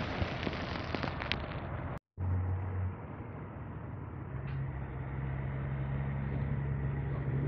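A rushing outdoor noise with a few sharp clicks, cut off abruptly about two seconds in. After the cut, a vehicle engine idles with a steady low hum that grows slightly louder.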